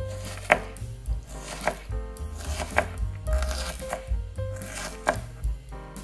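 Kitchen knife chopping an onion on a cutting board: a run of sharp, uneven knife strikes against the board, a few louder than the rest, with background music underneath.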